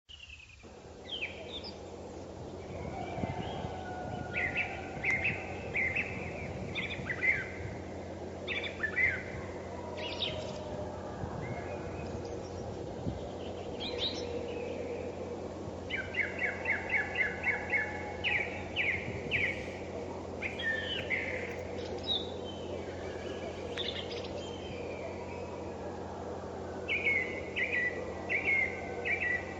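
Several songbirds singing and calling in turn over a steady low background hiss, with a quick run of repeated notes around the middle and another near the end.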